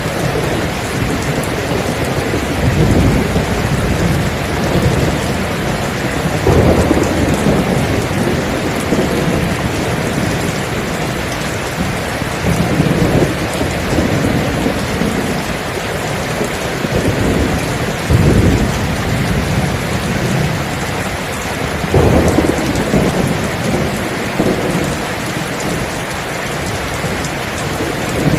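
Steady heavy rainfall with thunder rumbling again and again beneath it, the rumbles swelling and fading every few seconds.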